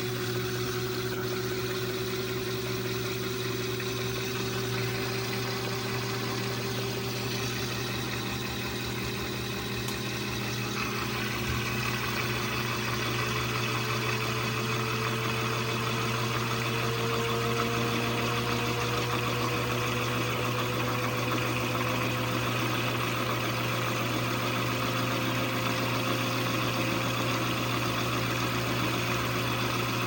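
2012 LG top-load washer spinning up, with a motor whine that slowly rises in pitch as the drum gathers speed over a steady hum. About ten seconds in, the sound grows a little louder and brighter.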